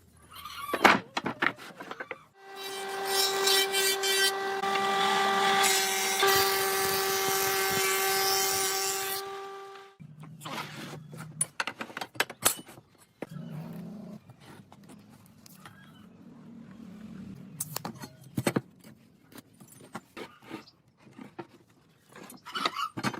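A power tool runs at a steady pitch for about seven seconds, a constant whine that starts abruptly and cuts off. Before and after it come scattered clicks and knocks of workshop handling.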